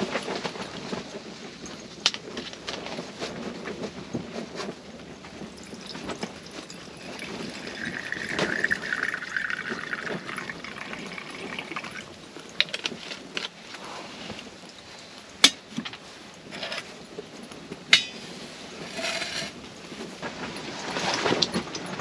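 Liquid poured from a bottle for a few seconds, among scattered light clicks and knocks of camp gear being handled on a table.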